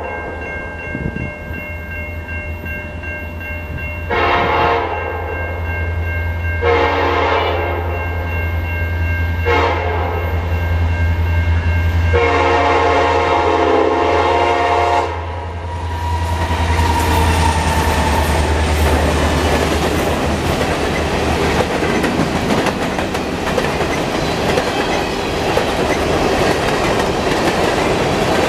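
A Canadian National freight's lead SD70ACe diesel-electric locomotive sounds its horn for a grade crossing in the long-long-short-long pattern (about 4 s in, then 7, 9.5 and 12 s), over a steady low engine rumble and a ringing crossing bell. From about 16 s the locomotives pass, and loaded covered hopper cars roll by with a continuous rumble and wheel clatter.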